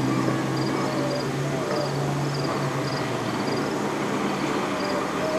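Outdoor ambience: an insect chirping in short high pulses, about two a second, over a low steady hum that weakens about three seconds in.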